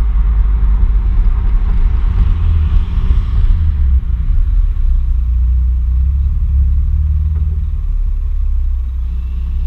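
Sport exhaust of a BMW Z4 E89 sDrive23i straight-six fitted with an Eisenmann system, heard right beside the twin tailpipes as the car drives: a deep, steady rumble, with a hissier layer over it that eases a few seconds in.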